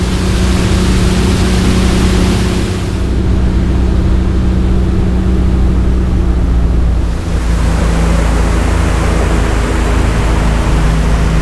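Boat's outboard motor running steadily under way, with rushing wind and water noise. The engine note drops slightly about seven seconds in.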